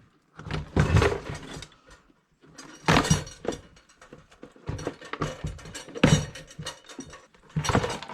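Hard plastic parts and tools being handled, knocking and scraping in several irregular bursts, with short pauses between them.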